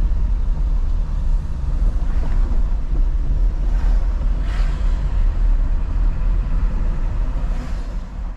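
A car driving on the road: a steady low engine and road rumble, with a few brief whooshes about two, four and four and a half seconds in and again near the end.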